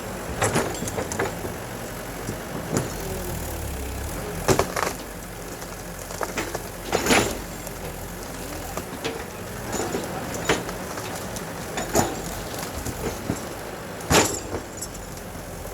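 Heavy construction machinery's engine running steadily, with sharp metallic clanks and knocks every couple of seconds.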